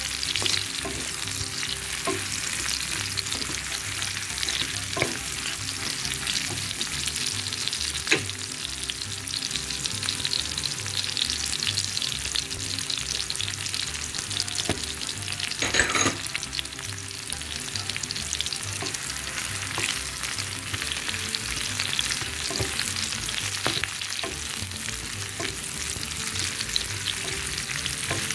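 Sliced onions, garlic, spice seeds and curry leaves frying in hot oil in a pan: a steady sizzling hiss with scattered pops and clicks, and a short louder crackle about halfway through.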